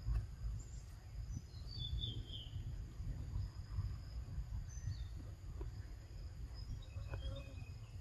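Outdoor forest ambience: a fluctuating low wind rumble on the microphone, a steady high insect drone, and a few short bird chirps about two seconds in and again near the end.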